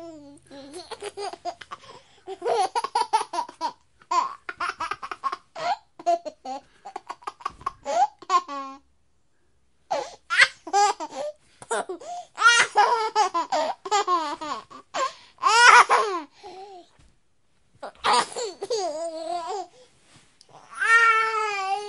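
A baby laughing, high-pitched giggles in quick bursts, in several stretches with two short pauses.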